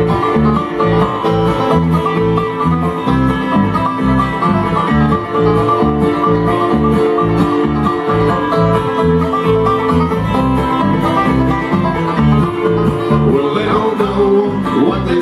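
Bluegrass band playing an instrumental break, banjo and guitar picking over a steady low bass line, with no singing.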